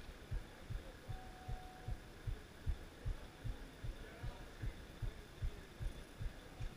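Muffled, steady bass-drum beat, about two and a half beats a second, over a faint hum.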